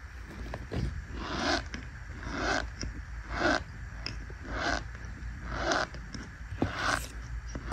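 Fingers pressing and squeezing into packed fine white powder in a plastic tub, giving a crunchy squeak with each press, about once a second.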